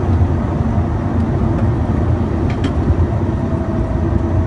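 Steady rumble of engines and airflow inside a jet's cockpit on final approach, with a faint click about two and a half seconds in.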